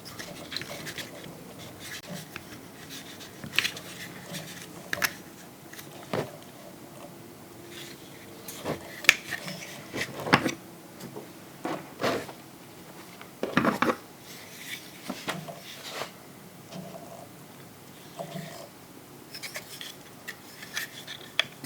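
Hard plastic action-figure parts being handled: irregular sharp clicks and knocks, louder and closer together in the middle.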